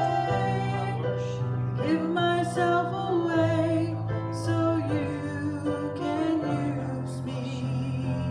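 Music: a slow song, a voice singing long held notes over sustained keyboard chords.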